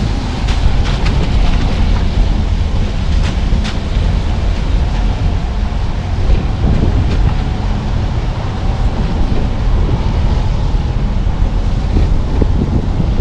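Steady low rumble of a car driving along a mountain road, road and engine noise, with a few light ticks in the first few seconds.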